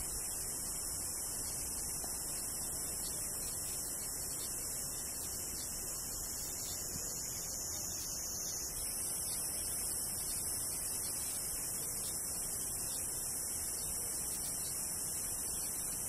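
Kaempfer cicada (niiniizemi) singing: a steady, high-pitched, shrill buzz without a break, its tone shifting slightly about nine seconds in.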